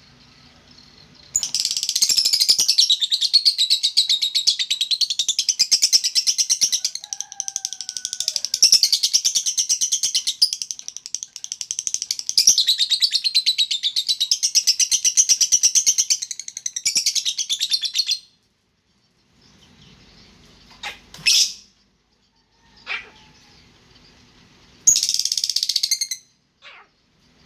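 Lovebird singing a long, rapid, unbroken chatter for about sixteen seconds. This is followed by a few short rising squeaks and a brief burst of chatter near the end.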